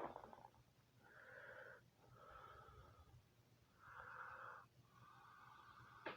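Faint, wheezy breathing through a congested nose from a person with a head cold, about five breaths of under a second each. A sharp click comes at the start and another near the end.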